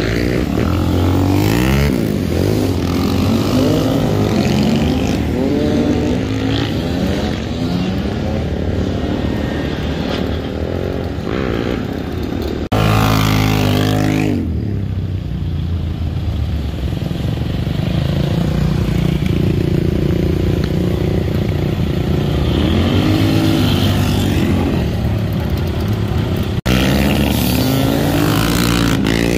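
Engines of quad bikes and enduro motorcycles revving and passing one after another, several at once, their pitch rising and falling as each goes by. The sound changes abruptly twice, about 13 and 27 seconds in.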